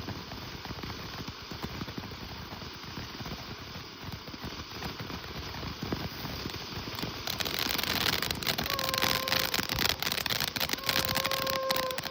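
Small fireworks crackling: a low hiss for the first seven seconds, then a dense run of sharp crackles about seven seconds in that grows louder, with two short steady tones near the end.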